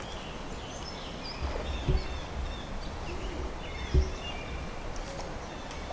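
Small birds chirping and singing over a low outdoor rumble, with two dull thumps about two and four seconds in.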